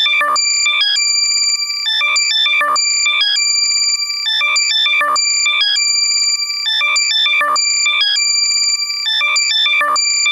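Loud, heavily compressed electronic alert tone made for locating lost AirPods, played in the left channel only: held high beeps alternating with quick chirping runs of notes, repeating over and over.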